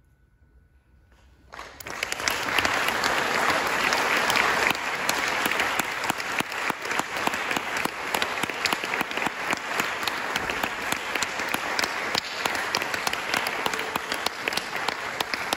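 Near silence, then audience applause breaks out suddenly about a second and a half in and continues densely, in a concert hall.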